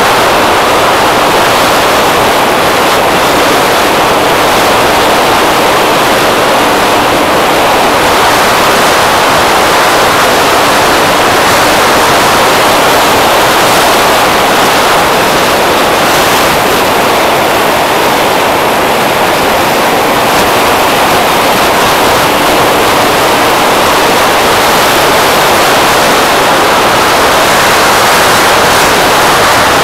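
Steady rush of wind buffeting the microphone of a camera on a moving scooter, with a faint steady hum from the scooter's engine under it.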